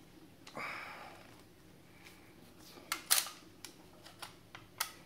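A short rubbing scrape, then a handful of sharp clicks and light knocks. These are the hard parts of an airsoft rifle's receiver being worked by hand while a stuck body pin is freed.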